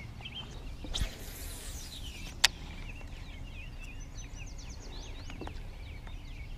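A fishing cast: a swish with line running off the casting reel, dying away over about a second, then a single sharp click. After that, small birds chirp over a faint steady background.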